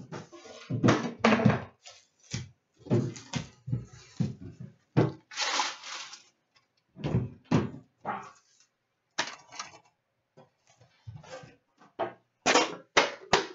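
Trading card boxes, packs and a metal tin being handled and set down on a glass counter: a string of knocks and thunks, with a longer scraping rustle about halfway through.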